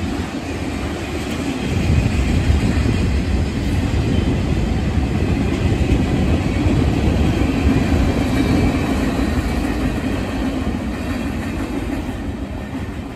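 Freight train cars rolling past, a steady rumble of wheels on the rails that swells a couple of seconds in and slowly dies away toward the end as the last cars pass.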